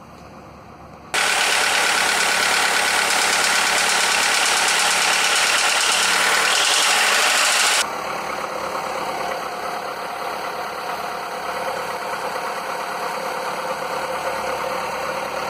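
Skoda Fabia 1.4 16V petrol engine idling steadily after its worn pistons were replaced; the mechanic says the piston slap is now gone. The sound jumps abruptly louder about a second in and drops back somewhat, duller, about halfway through.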